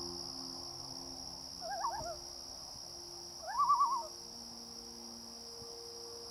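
Two short quavering calls from a night bird about two seconds apart, the second longer and louder, over steady high-pitched insect trilling and low sustained drone tones.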